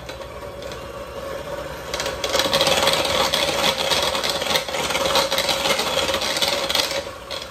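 Electric hand mixer running with a steady motor whine, its beaters churning a batter of creamed butter, sugar, egg and vanilla and rattling against the mixing bowl. It gets louder about two seconds in and stops near the end.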